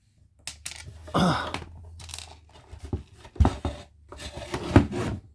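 A wooden chair being handled: scraping and rustling with scattered clicks, and two heavy knocks about three and a half and five seconds in. A short grunt-like sound comes about a second in.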